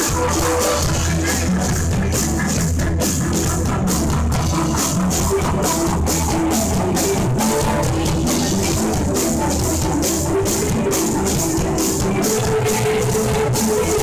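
Live rock band playing: electric guitar, bass and keyboards over a drum kit keeping a steady beat.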